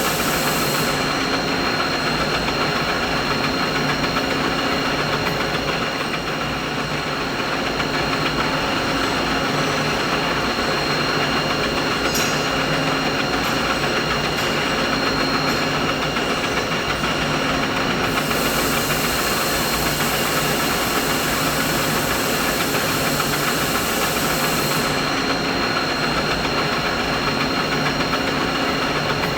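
Steady mechanical machine hum: a continuous whirring noise with several steady tones and a faint low pulsing. A high hiss drops out about a second in, comes back past the middle, and drops out again toward the end.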